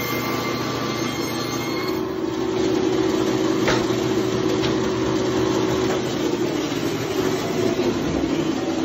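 Meat band saw running steadily as its blade cuts through a beef roast, with a sharp click about three and a half seconds in.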